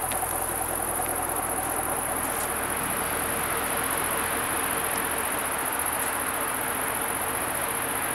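Steady high-pitched insect drone from the roadside vegetation. Under it the Camaro SS's 6.2-litre V8 idles quietly for the first two seconds or so, then dies away as the engine is shut off.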